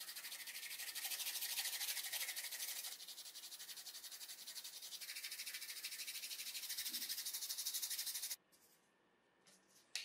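A lump of charcoal scraped rapidly back and forth across a sandpaper disc, a steady gritty rasp that grinds it into black powder. It stops abruptly about eight seconds in.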